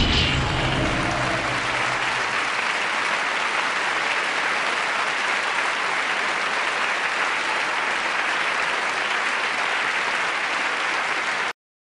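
Steady applause from an audience, cut off abruptly shortly before the end.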